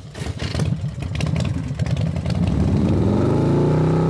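Motorcycle engine running with a rapid firing beat, then revving up, its pitch rising through the second half.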